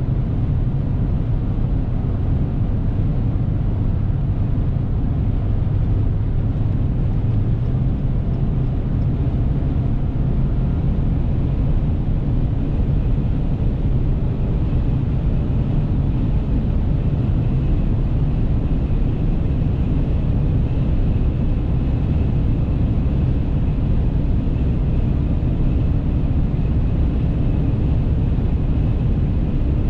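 Cab noise of a Dodge Ram 1500 with the 5.7 HEMI V8 at motorway speed: a steady low drone of engine, tyres and wind as the truck slowly gains speed. A faint high whistle joins about halfway through.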